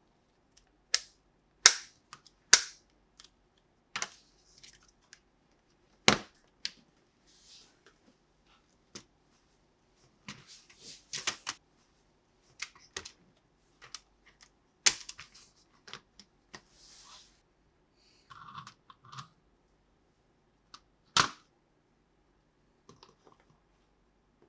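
Plastic toys and their packaging being handled: irregular sharp plastic clicks and taps, a few of them loud, with short bursts of rustling in between.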